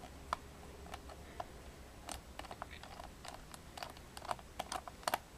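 Phillips screwdriver backing out a small screw from the plastic bottom cover of an Acer Aspire One netbook: faint, irregular light clicks and ticks, bunched in a few clusters.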